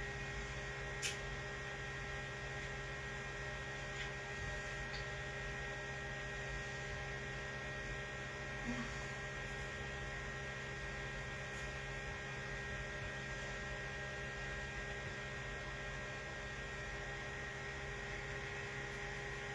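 Steady electrical hum made up of several fixed tones over a low rumble, with a few faint ticks.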